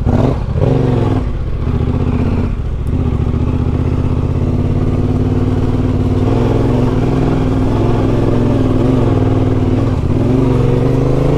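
Yamaha Ténéré 700's parallel-twin engine running as the bike is ridden along a rough dirt track, its pitch rising as the rider gets on the throttle just after the start and again near the end.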